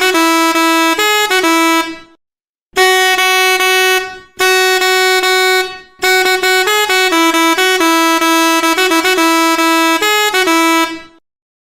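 SEGER 86EM Mehter air horn with three red plastic trumpets playing a Mehter march tune, one loud reedy note at a time stepping through a rhythmic melody. It breaks off briefly about two seconds in and again near six seconds, and stops near the end.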